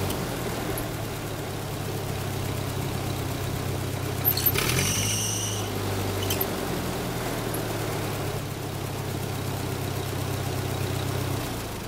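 Ford 8N tractor's four-cylinder flathead gasoline engine running steadily on its freshly rebuilt carburetor, with the fuel jet just opened up to richen a lean mixture. The engine speed shifts briefly about four and a half seconds in, with a short high squeak, and the engine drops away at the very end.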